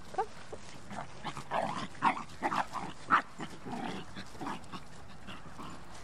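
A dog giving a string of short, high cries, bunched between about one and four and a half seconds in, with a couple of fainter ones near the start and the end.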